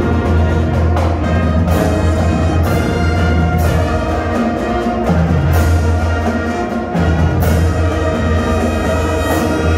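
School marching band playing in a reverberant gymnasium: brass chords over low sustained sousaphone notes, with percussion hits roughly once a second.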